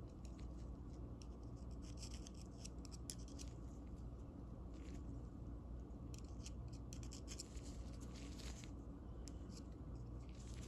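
Faint, scattered small clicks and scrapes of a bent metal rod touching and rubbing against a small steel ratchet pawl held in nitrile-gloved fingers, over a steady low hum.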